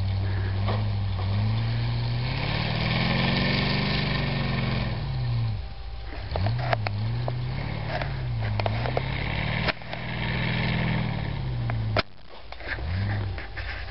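Willys pickup truck engine revving up and falling back again and again as the truck churns through deep snow with its wheels spinning. A few short sharp knocks sound over it.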